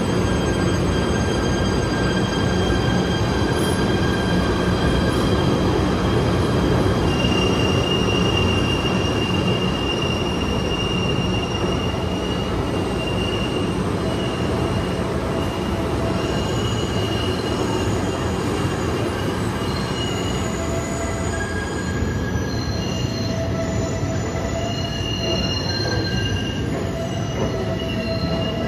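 PATH subway train moving along a curved station track, a steady rumble with the steel wheels squealing in high, drawn-out tones that come and go, stronger from several seconds in.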